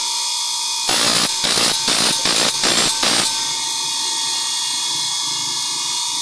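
Bench grinder's abrasive wheel running with a steady whine while a saw blade's teeth are ground on it: about eight short grinding rasps, roughly three a second, from about one to three seconds in, then the grinder running on alone.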